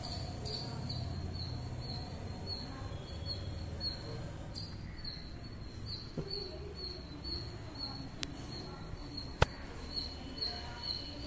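A steady run of short, high chirps, two or three a second, with a few sharp taps, the loudest about nine seconds in.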